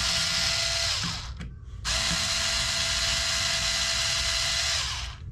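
Electric drill-driver backing out screws from the plastic pin-retainer of an RC truck's rear axle assembly. It runs in two steady whining bursts, the first stopping about a second in and the second starting a moment later, then winding down near the end.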